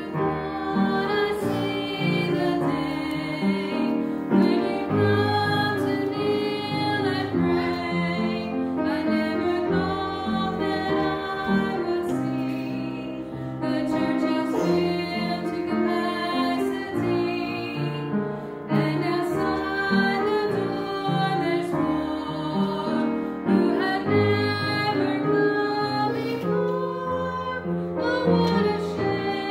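Women singing a gospel song with piano accompaniment, the voices held in long wavering notes.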